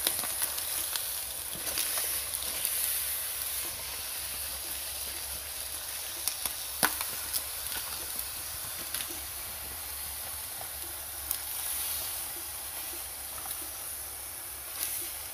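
Steady hiss of a pot of chicken curry cooking over a low flame, with a few soft crackles and rustles as wet banana leaves are pressed down over the pot.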